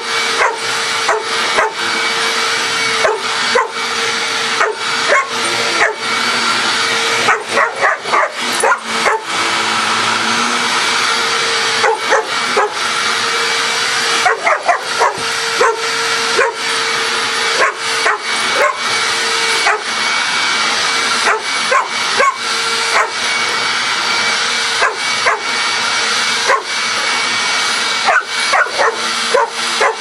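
Dog barking repeatedly in irregular quick runs at a running vacuum cleaner, over the vacuum's steady loud drone with a constant hum.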